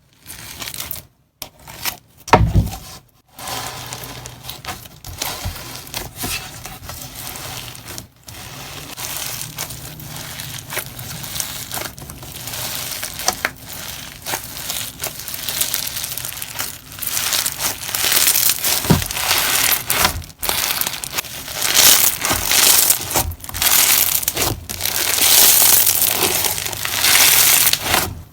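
Slime being squished and pressed by hand, giving a dense crackling and crunching, with a few short breaks and louder crunching in the second half.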